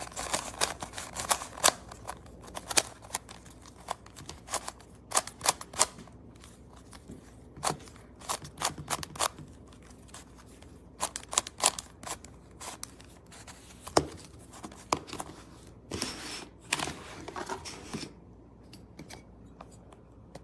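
Plastic speed cube being turned by hand: quick runs of clicking and clacking from the layers snapping round, in bursts broken by short pauses, fading to a few scattered clicks near the end.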